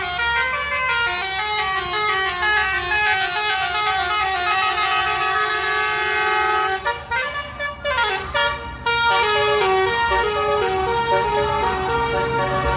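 Indonesian telolet bus horn, a set of trumpet horns playing a fast run of stepping notes as a melody. About seven seconds in the tune breaks into a couple of seconds of choppy, broken blasts, then the stepping notes resume.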